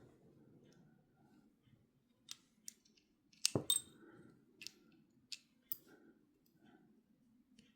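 Small parts of an Abumatic 150 reel clicking and clinking against each other as the reel is put back together by hand: a scatter of short sharp clicks, the loudest few about three and a half seconds in.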